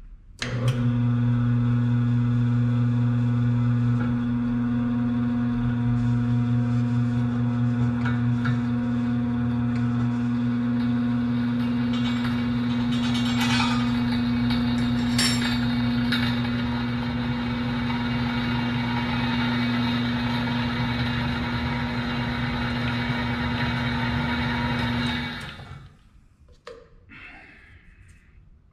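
Floor-standing drill press running steadily with a deep electric-motor hum as it drills holes in steel pipe, with a few sharp clicks partway through. The motor shuts off near the end.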